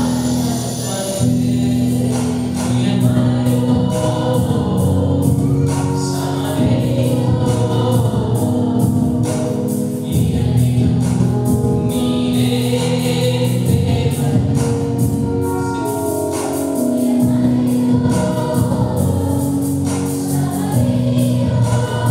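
Tamil Christian worship song sung by a man and a woman over a full band backing with a steady percussion beat.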